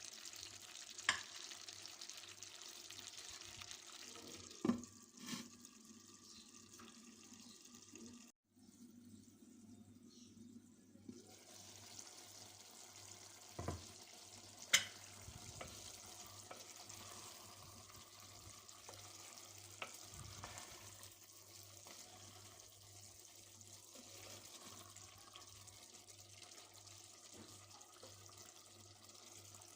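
Kitchen cooking sounds: a steady faint hiss with a handful of sharp knocks. The sound drops out completely for a moment about eight seconds in.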